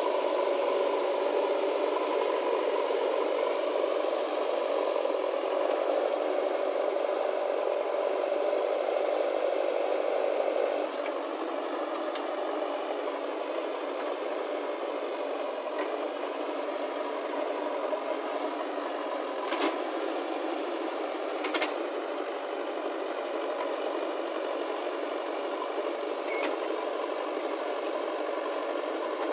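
A vehicle or machine engine running steadily, its sound dropping a little and changing about eleven seconds in. Around twenty seconds in, two sharp clicks come about two seconds apart.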